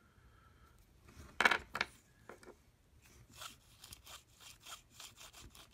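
Small plastic USB adapter plugs handled in the hands and fitted together, with a sharp click about a second and a half in, a second soon after, then lighter clicks and rubbing.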